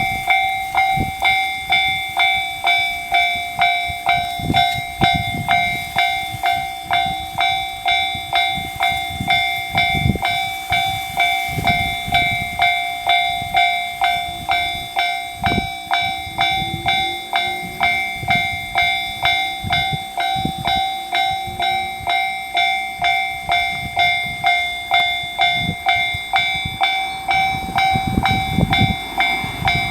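Japanese level crossing's electronic warning bell ringing steadily, one decaying clang after another at an even pace, with low rumbling underneath.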